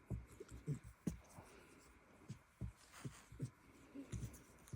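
A sleeping opossum snoring faintly: short, soft, low snorts at irregular intervals, about ten of them.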